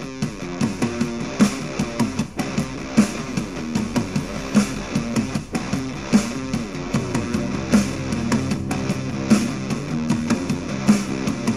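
Rock music in an alternative/punk style, with guitars and a steady drum beat, played back through a portable Bluetooth speaker.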